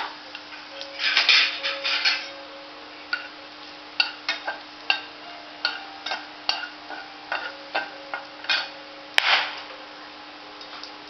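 A metal spoon clinking and scraping against a cooking pan while cumin seeds and dried red chillies are stirred in hot oil for a tadka. The clinks are irregular, with a longer scraping stretch about a second in and the sharpest clink about nine seconds in, over a steady low hum.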